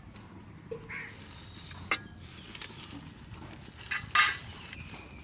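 Kitchen utensils knocking against a cooking pot: a sharp click about two seconds in and a louder, brief clatter about four seconds in.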